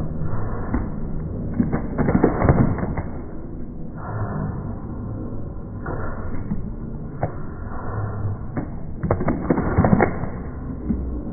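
Slow-motion, pitched-down audio of a street breakdance performance: a low, muffled rumble with scattered thuds and knocks, several clustered near the middle and again near the end.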